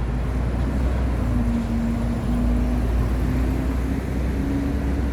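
Road traffic on a busy city street: a steady low rumble of vehicle engines, with one engine's hum held and slowly rising a little in pitch.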